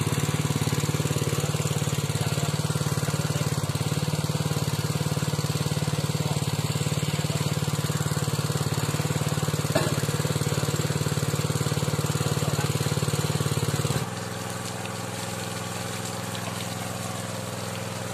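Small engine running steadily as it drives the water pump that feeds the hand-turned drill pipe of a manual well-boring rig. The hum drops quieter about fourteen seconds in.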